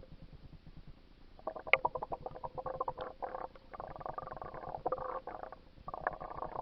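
Muffled gurgling and sloshing of water, in stretches of one to two seconds with short breaks, over a faint low pulsing.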